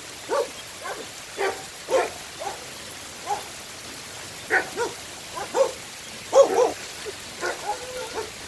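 About a dozen short animal calls at uneven intervals over the steady hiss of heavy rain, the loudest about six and a half seconds in.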